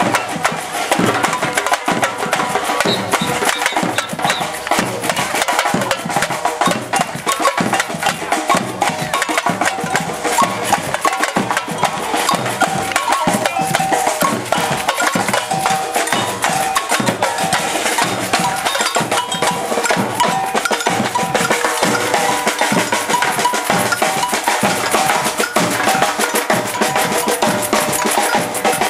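Brazilian samba-style batucada percussion band playing a continuous, driving rhythm on drums, snare drums and other hand percussion.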